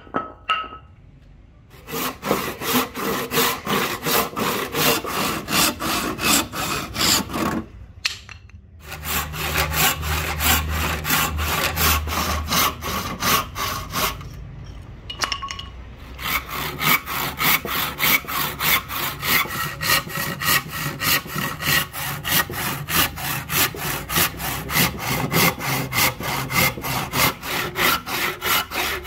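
Hand saw cutting through rosewood, back-and-forth strokes about two to three a second. The sawing stops briefly near the start, about eight seconds in and about fifteen seconds in.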